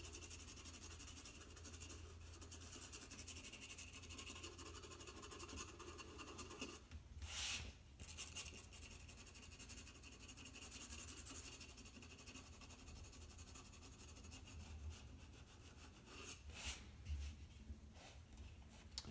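White charcoal pencil scratching on black drawing paper in quick, continuous shading strokes, with a few louder strokes about seven and sixteen seconds in.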